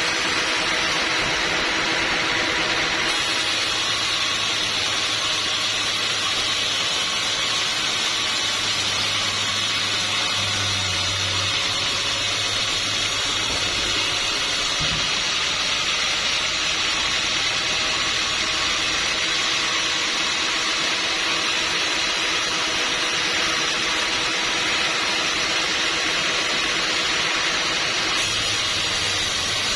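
Band sawmill running steadily: a constant hissing whir with a steady hum under it, shifting slightly in tone a few times as the saw works through teak.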